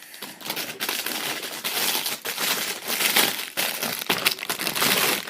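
Plastic packaging crinkling and crackling as it is handled, with many small rapid crackles.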